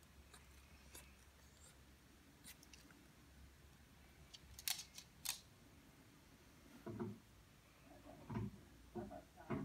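A Maltese dog's claws clicking on a wooden floor as it moves, with a few sharp clicks about halfway through. Several short, muffled low sounds follow near the end.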